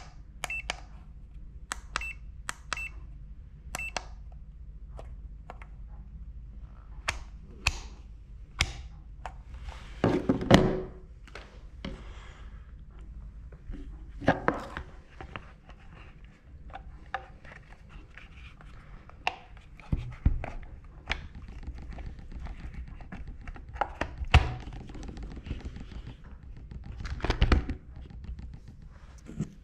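Handling noise from a Würth MM 600 TRMS digital multimeter: button presses click in the first few seconds, several with a short high beep, then knocks, thumps and rustles as the meter is handled and set down on a desk, the loudest a thump about ten seconds in.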